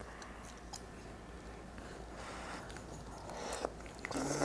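Quiet eating: a fork and spoon clicking faintly against a stainless steel pan, then noodles slurped near the end.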